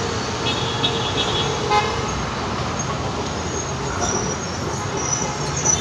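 Alexandria Raml-line tram approaching the stop over steady street traffic noise, with a horn sounding for about two seconds near the start.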